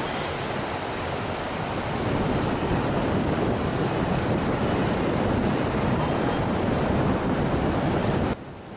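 Seafront ambience: a steady rush of wind buffeting the camera microphone together with surf, growing a little louder about two seconds in and cutting off abruptly near the end.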